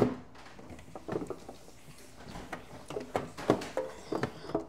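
Scattered light clicks and knocks of items being handled while clearing out a refrigerator.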